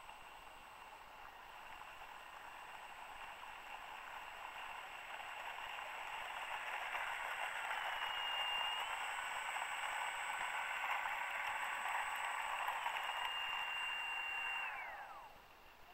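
Electric motor and propeller of a 1.2 m foam radio-controlled P-51 Mustang model, a steady whine that grows louder over the first half. About a second before the end it winds down with a falling pitch as the motor is shut off.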